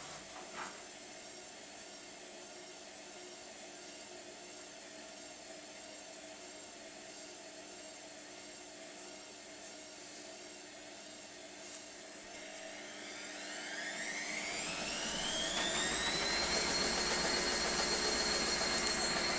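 Indesit IWC6105 washing machine running. About two-thirds of the way through, the drum speeds up into its spin: a rising whine that levels off into a steady, high whine and grows louder. The machine's drum bearings had failed.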